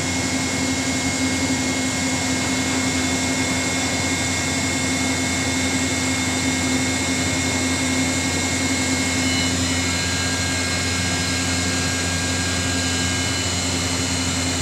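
Ship's hydraulic deck crane running: its power unit gives a steady hum with a thin whine, unbroken throughout.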